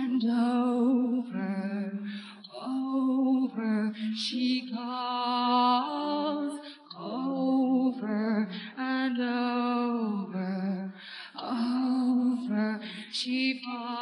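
A woman's lead vocal with the band removed, singing a slow melody in phrases of long held notes with vibrato, separated by short breaks.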